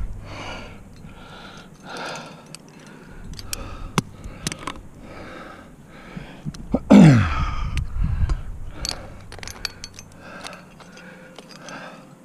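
A climber's heavy, rhythmic breathing from the effort of hanging on the route, roughly one breath a second, with sharp metal clicks of climbing gear on the harness as protection is placed. About seven seconds in, a loud groan falls in pitch.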